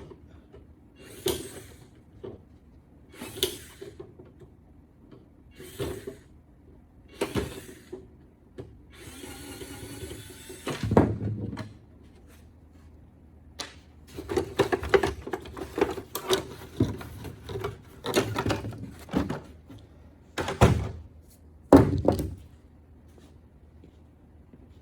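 Handling knocks, clicks and clunks as the cover is taken off a key-cutting machine, with a short rasping scrape about nine seconds in, then a heavier thud, a busy run of knocks in the middle and two loud knocks near the end.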